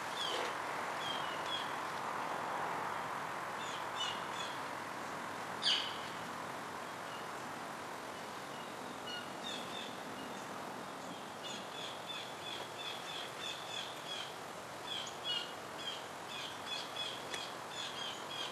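Small birds chirping in short repeated calls over a steady outdoor background hiss, with one louder, sharper call about six seconds in; the chirping grows busier in the second half.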